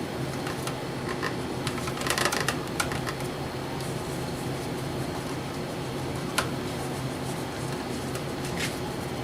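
Steady machine hum in the room, with a cluster of small clicks and rustles of hand work about two seconds in and a single sharp tap about six seconds in.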